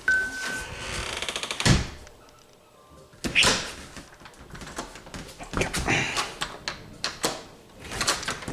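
A house door being opened and pushed shut, with a loud thunk about two seconds in and a second knock a second or so later, among handle and latch clicks. A short electronic beep sounds right at the start and again at the end.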